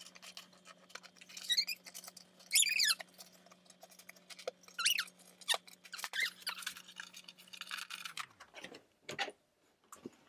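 Plastic X-shaped fasteners being pulled out of a cardboard toy box: scattered clicks and rustles of cardboard with a few short high squeaks, the loudest about three seconds in. A faint low hum runs underneath and stops about eight seconds in.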